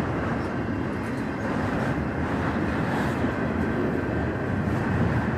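Empty autorack freight cars rolling past, with the steady noise of steel wheels running on the rails.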